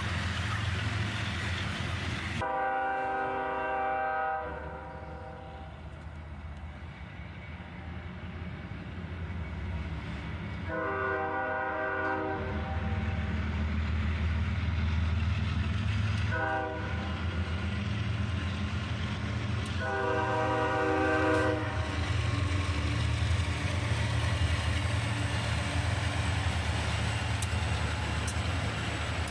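Diesel locomotive leading an intermodal freight train sounds its multi-chime air horn in the grade-crossing pattern: long, long, short, long. Under it the engines and train rumble steadily, growing louder about halfway through as the train comes by.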